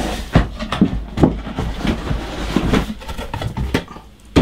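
Cardboard kit box being opened: the lid worked loose and lifted off, with rustling and a run of sharp taps and knocks.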